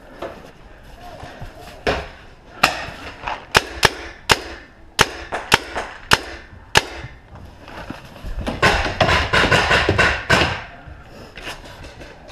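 Paintball markers firing: a string of single sharp shots a fraction of a second apart, then a dense stretch of rapid shots about eight and a half seconds in that lasts about two seconds.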